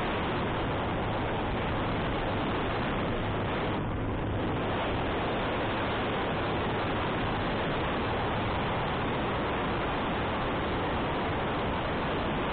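Steady wind rushing over the microphone of a moving motorcycle climbing uphill, with the engine's low hum underneath.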